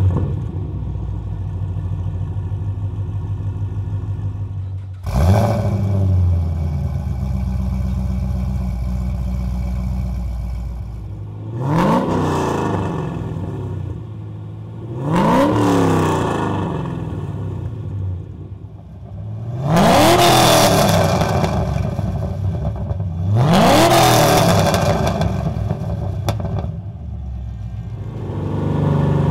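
Chevrolet Camaro V8 exhaust through BBK VariTune adjustable mufflers set closed, the mild three-chamber setting. It settles to idle just after start-up, then is revved five times, the pitch climbing and falling back to idle each time, the last two revs the highest and loudest.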